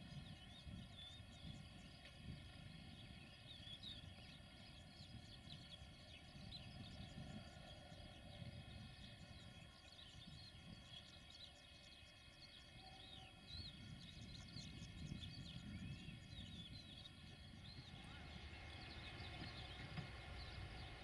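Faint birdsong: many small birds chirping in quick, scattered calls over a low outdoor rumble. The chirps grow busier near the end.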